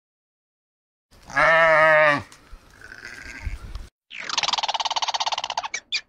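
A loud, wavering, bleat-like animal call about a second in. From about four seconds, a gray squirrel's buzzy, rapidly pulsed alarm chatter, breaking into short separate chirps near the end.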